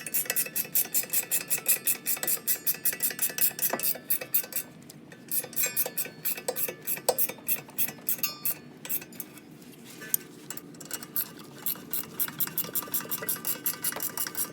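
Hand ratchet wrench clicking in quick, even runs of about five clicks a second as the caliper bracket bolts are tightened, with short pauses about four seconds in and again around eight to ten seconds in.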